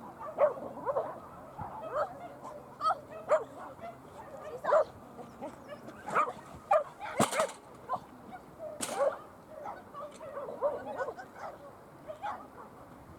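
Dog barking and yipping in many short, sharp calls scattered through the whole stretch. There are two brief rushing bursts of noise, about seven and nine seconds in.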